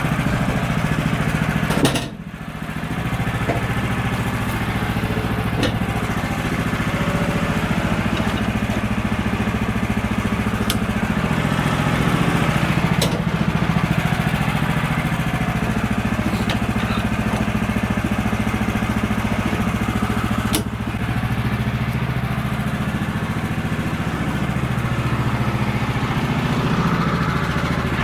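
Woodland Mills HM126 bandsaw sawmill's gasoline engine running steadily while milling a red oak cant, with a few sharp clicks and two brief dips in the engine sound.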